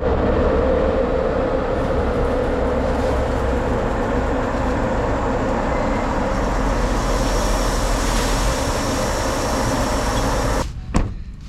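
Truck driving on the road: steady engine and road noise, ending abruptly about ten seconds in.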